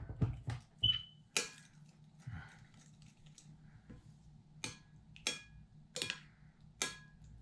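A metal spoon clinking against a ceramic bowl while raw eggs are beaten, with a few light clicks in the first second and a half. In the second half come four sharp clinks with a short ring, about two-thirds of a second apart.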